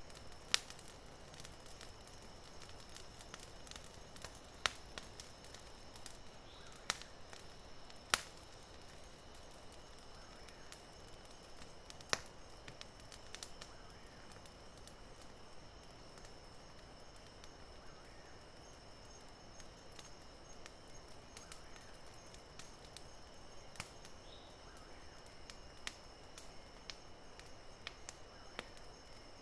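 Campfire crackling, with irregular sharp pops from the burning wood, over a steady high-pitched insect chirring.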